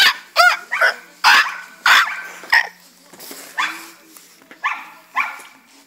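A dog barking over and over, about two barks a second, the barks growing fainter after about three seconds. It is a neighbour's dog that barks all day long.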